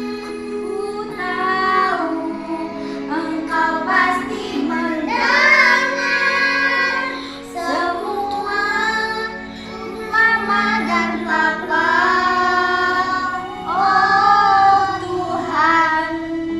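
A child singing a song in phrases over steady instrumental accompaniment.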